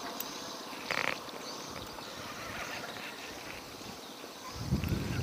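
Small spinning reel being worked while a bent rod plays a hooked giant freshwater prawn, with a brief scrape about a second in and a low rumble from about four and a half seconds in.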